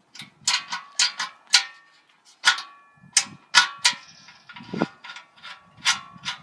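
Sharp metallic clicks and clanks with a brief ring, about a dozen in irregular clusters, from the spring-loaded latch and door of a homemade welded metal mailbox being worked.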